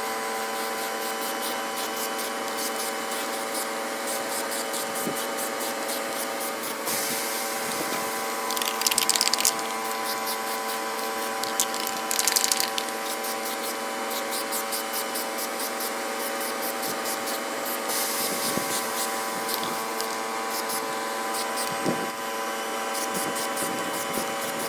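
Aerosol spray paint can hissing in several bursts as black paint is sprayed onto a metal differential cover. A steady hum runs underneath.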